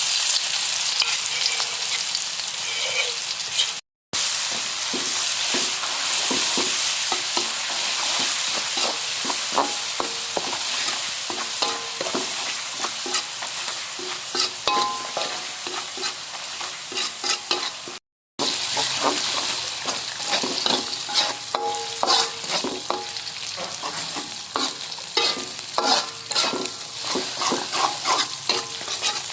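Fried rice sizzling in a hot pan while a spatula stirs and scrapes it, with frequent short clicks of metal on the pan over a steady frying hiss. The sound cuts out completely twice, briefly, about 4 seconds and 18 seconds in.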